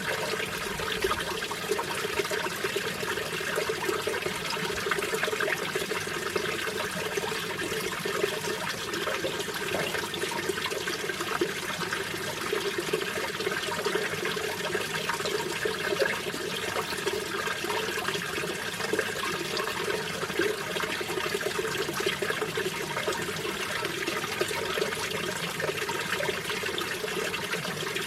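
Mountain valley stream water flowing steadily, an even rushing sound.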